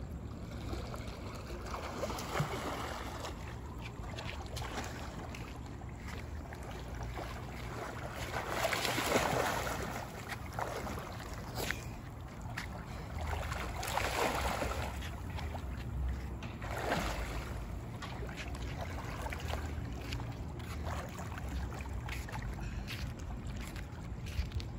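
Pool water splashing and sloshing as a person wades and swims, in swells that are loudest about a third of the way in and again around halfway, over a steady low rumble.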